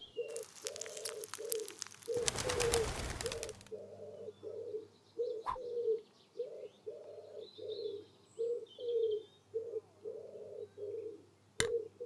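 Bird seed pattering and then pouring in a rush from a packet into a halved orange peel for the first few seconds, over continuous low cooing of doves, a steady run of short coos. A single sharp click comes in the middle and a few more near the end.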